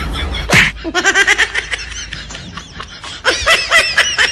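Laughter in rapid, repeated high-pitched bursts, in two runs split by a short break about three seconds in, after a short loud falling sound effect about half a second in.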